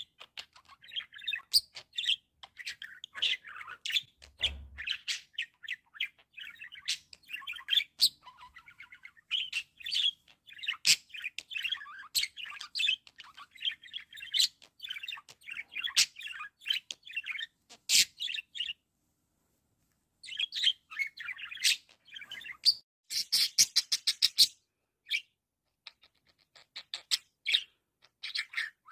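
Pet budgerigar chattering and warbling in a busy stream of quick chirps and squeaks. The chatter breaks off for over a second past the middle, then resumes with a fast run of clicks.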